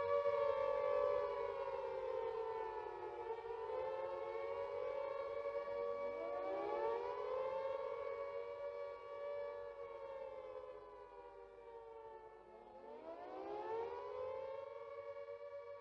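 Air-raid siren wailing, its pitch sliding slowly up and down, with fresh rises about six seconds in and again near the end before it fades.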